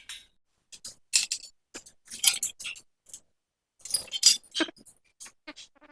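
Small stainless-steel railing parts clinking and rattling as they are handled: an irregular string of short, sharp metallic clinks, busiest about a second in and again around four seconds in.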